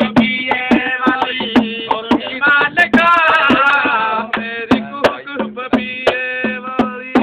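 Male folk singing in Punjabi, long held and bending vocal notes, over a small hand drum struck in a quick, uneven rhythm.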